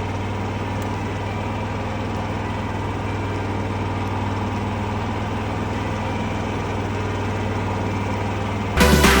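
Predator 11,500 W tri-fuel inverter generator running steadily with an even low hum. Electronic music cuts in near the end.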